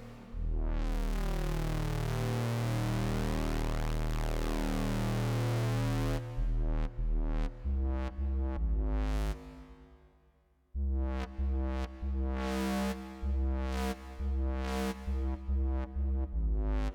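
Electronic music played on hardware synthesizers and an MPC One. A long held synth chord gives way about six seconds in to short, repeated bass notes. The sound dies away about ten seconds in, then starts again with choppy bass notes and chords, and fades near the end.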